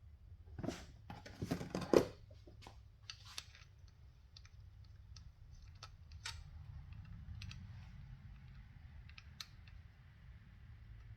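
Metal hand tools and small engine parts clinking and knocking as they are handled: a cluster of sharp knocks between about half a second and two seconds in, the loudest near two seconds, then scattered single light clicks.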